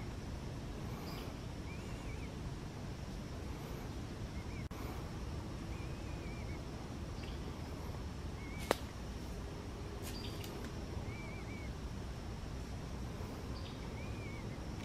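Quiet woodland ambience: a small bird gives a faint short arched chirp every second or two over a steady low background rumble, with a single sharp snap a little past halfway.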